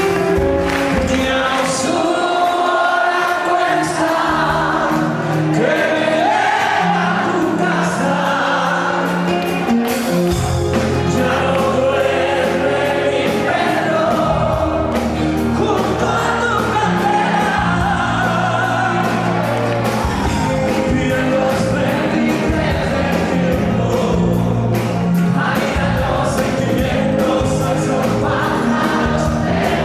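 Live band playing a song with sung vocals over held bass notes and a steady drum beat.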